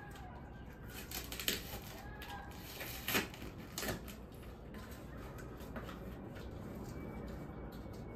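A small cardboard box being handled and opened by hand: crinkles and sharp clicks of the cardboard, loudest about one and a half, three and four seconds in.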